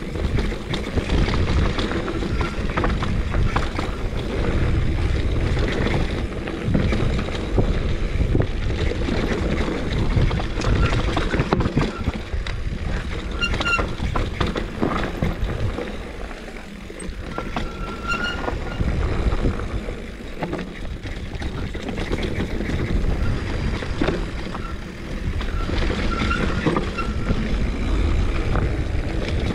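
Mountain bike riding fast down a dirt singletrack: wind rushing over the microphone and tyres rolling over dirt, with many short clattering knocks as the bike hits roots and rocks. It eases off briefly about halfway through.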